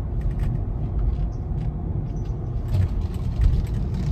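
Steady low rumble of a moving car heard inside its cabin, with a few light clicks.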